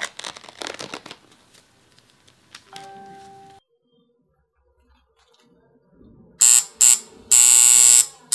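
Tattoo machine switched on in short bursts near the end: two brief buzzes, then a longer steady buzz. Earlier there are rustling handling sounds and a brief low hum.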